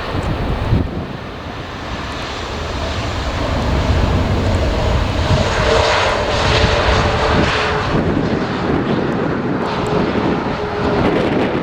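Jet airliner's engines running as the aircraft passes: a loud, steady rush of noise that grows louder about four seconds in, with a thin whine held through the second half.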